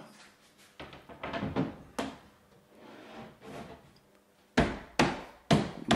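Splashback panel being set against the wall: light scraping and knocking as it is positioned, then four sharp thumps about half a second apart as it is pressed and slapped by hand onto the adhesive.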